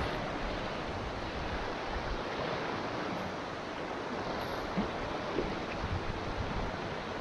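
Steady rushing of river water, with a few faint knocks about five seconds in.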